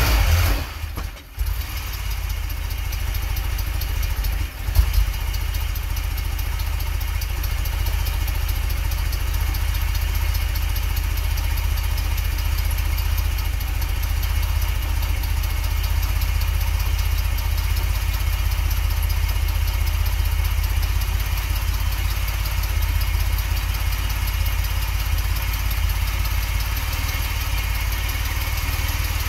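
A 1981 DeLorean DMC-12's PRV V6 running just after a cold start. The engine note dips briefly about a second in and jumps once near five seconds, then settles into a steady idle.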